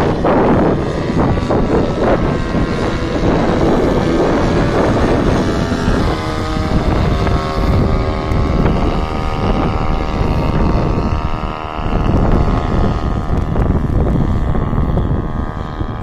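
Paramotor's engine and propeller running overhead as a steady drone, its tones clearest in the middle, under heavy wind buffeting on the microphone.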